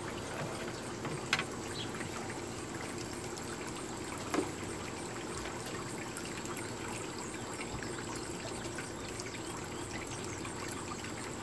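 Steady rushing hiss, with a faint click about a second in and a soft knock about four seconds in.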